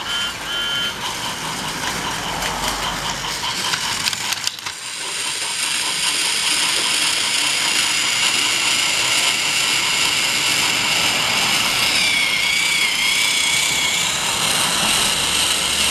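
Battery-powered Trackmaster toy train motor and plastic gears whirring steadily, louder from about five seconds in, with a high whine that wavers in pitch near the end.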